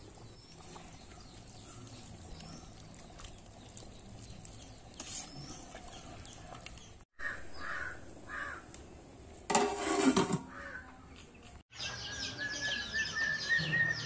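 Crows cawing now and then against quiet open air, with a brief loud knock or bump about ten seconds in. In the last two seconds come rapid high peeping of chicks beside a mother hen.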